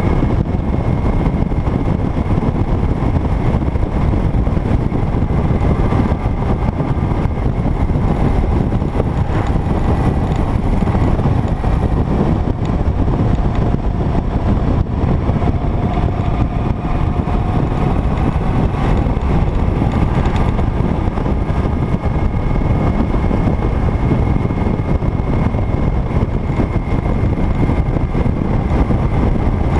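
Motorcycle cruising at steady road speed: the engine runs evenly under a heavy rush of wind over the microphone, with faint tones that waver slightly in pitch in the middle.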